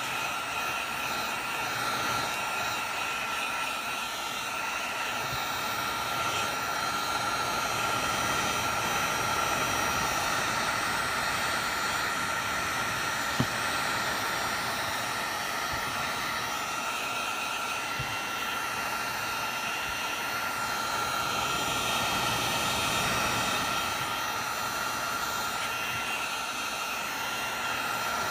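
Heat gun blowing hot air steadily, a rushing blow with a steady whine, heating the new screen's factory adhesive to cure it. One brief click about halfway through.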